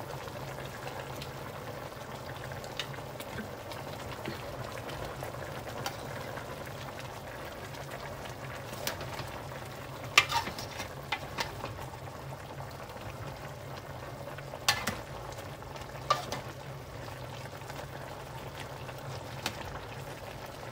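Chicken adobo with potatoes bubbling at a simmer in a metal pot, over a steady low hum. A metal ladle stirs it and clinks against the pot a few times, loudest about halfway through.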